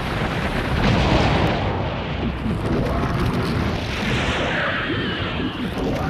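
Animated film sound effects: loud, continuous rumbling and crashing like explosions and falling debris.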